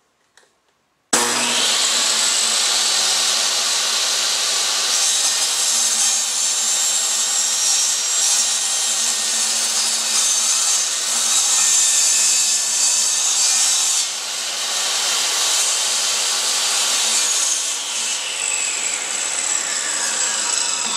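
Table saw starting suddenly about a second in and running steadily while ripping a pen blank from an oak whiskey barrel stave, fed through with a push stick. Near the end the saw's pitch falls away as it winds down.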